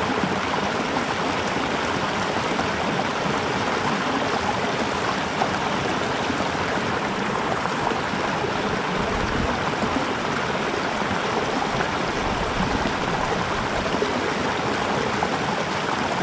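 Small mountain creek running over rocks and little cascades: a steady rush of water.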